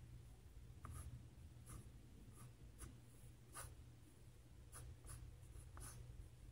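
Colored pencil sketching on sketchbook paper: faint, short scratchy strokes, about ten of them at an uneven pace.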